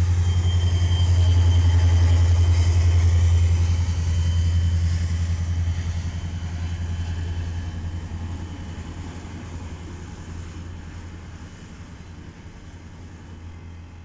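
CN diesel-electric freight locomotive passing close by, its engine's deep steady drone loudest in the first few seconds and fading as it pulls away while freight cars roll past. A thin high whine sounds through the first half.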